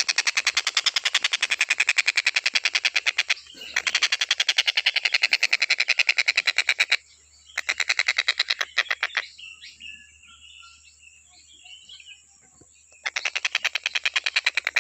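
Tengkek buto bird calling in long, fast rattling trains of evenly spaced notes, about nine a second. About halfway through it breaks off for several seconds, leaving only softer scattered chirps, then the rattle starts up again near the end.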